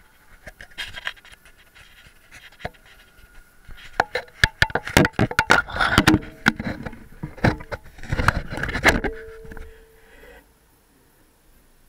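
Handling noise from a small action camera gripped and moved by hand: a run of sharp knocks, scrapes and rustles against the mic, busiest between about four and nine seconds in, then dying away.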